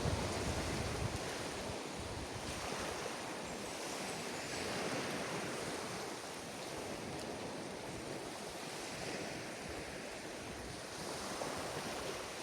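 Sea surf washing onto a beach: a steady hiss of breaking waves that swells and eases every few seconds. Wind rumbles on the microphone in the first second.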